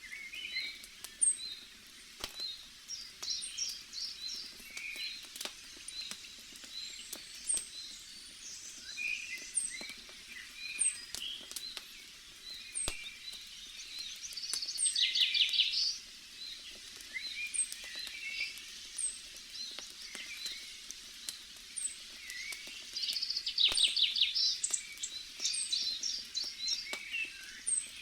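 Campfire crackling with scattered sharp pops, while forest birds chirp and call throughout. Two louder rapid trills come, one about halfway through and one near the end.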